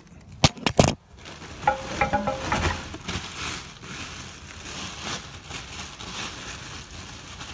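An oil pan pickup tube set down with two sharp knocks, followed by steady crinkling and rustling of plastic packaging being handled.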